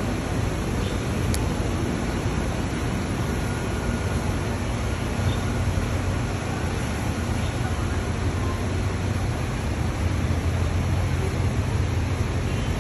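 Steady low rumble of idling buses at a bus interchange, with a constant hiss of background noise over it.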